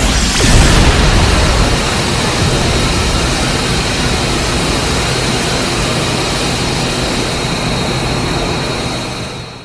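Designed Mechagodzilla sound effect: a steady, jet-like rushing roar with a thin high whine and a low hum under it, starting with a louder surge and fading out near the end.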